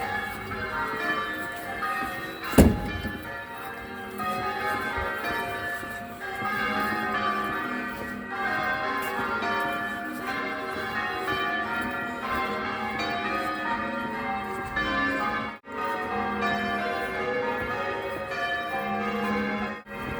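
St Paul's Cathedral church bells ringing, many bell strokes overlapping one another, with a single sharp thump about two and a half seconds in.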